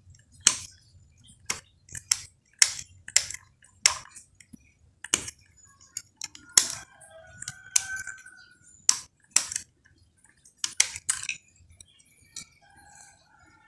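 Small sharp clicks and scrapes, irregular and one or two a second, from a pointed tool and a toothpick worked inside an opened plastic rocker switch to clean dirt and corrosion off its metal contacts.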